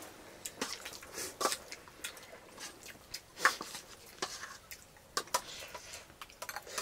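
Eating sounds: a metal spoon clicking and scraping in a steel bowl of rice, mixed with chewing and lip smacks, in short irregular clicks.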